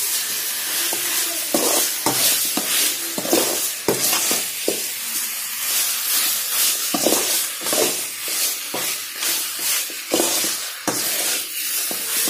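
Chicken pieces in a thick masala paste sizzling in a metal pot with no water added, while a metal ladle stirs and scrapes through them in repeated, irregular strokes.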